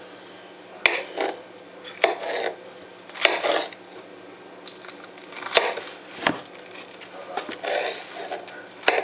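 Kitchen knife cutting peaches on a cutting board: about six sharp knocks of the blade striking the board at irregular intervals of roughly a second, with softer sounds of the fruit pieces being handled and pushed aside between them.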